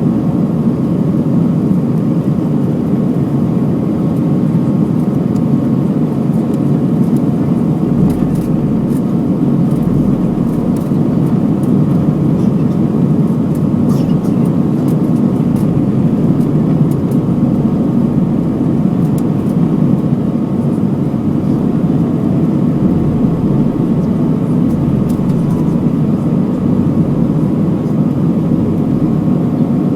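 Steady cabin noise of an Airbus A320-232 in flight: its IAE V2500 engines and the airflow past the fuselage as a constant deep rushing hum, with a few faint steady tones above it.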